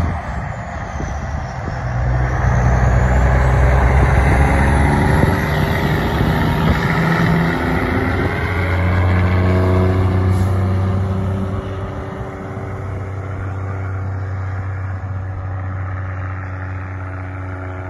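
Diesel semi truck pulling an end-dump grain trailer, accelerating along the road with the engine note stepping between gears, then fading as it drives away.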